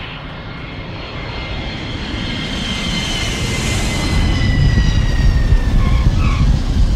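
Airplane flyby: a rumble that grows steadily louder under a whine of several tones that slowly fall in pitch.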